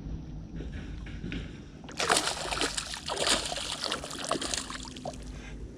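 A hooked bass splashing and thrashing at the water's surface beside the boat, loud from about two seconds in for about three seconds.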